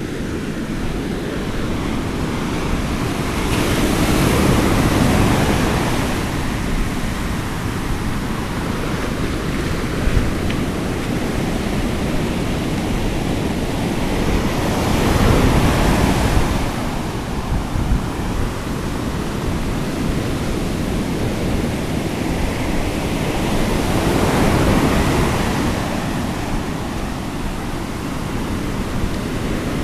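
Ocean surf breaking and washing up a sandy beach, swelling three times about ten seconds apart, with wind rumbling on the microphone.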